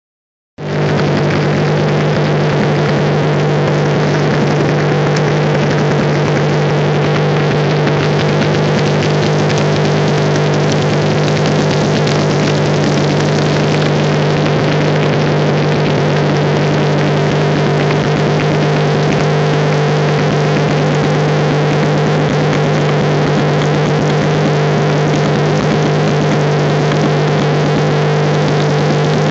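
Lancia Stratos rally car's engine running at a steady, unchanging speed, starting about half a second in, with no revving.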